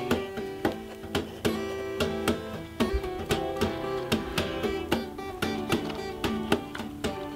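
Background music: plucked acoustic guitar playing in a steady rhythm.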